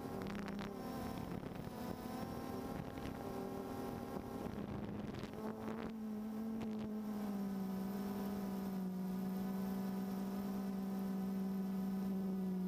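DJI Phantom 2 quadcopter's motors and propellers humming steadily, heard through the onboard GoPro's microphone, with brief wind buffeting in the first few seconds. The pitch of the hum dips slightly about seven seconds in and then holds.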